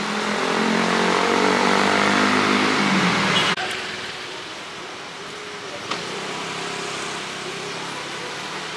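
A motor scooter passes close by, its engine note swelling and then sliding down in pitch as it goes past, over the noise of city traffic. About three and a half seconds in the sound cuts to a quieter, steadier noise of slow-moving street traffic.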